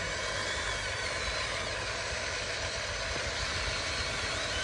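Electric motors of radio-controlled construction models whining steadily, the pitch wandering a little, over a continuous hum.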